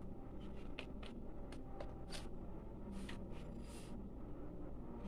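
Faint, scattered soft clicks and short scrapes of a computer mouse being clicked and slid, over a low steady hum.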